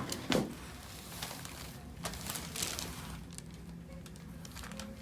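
Soft rustling and handling sounds, with one brief louder knock shortly after the start.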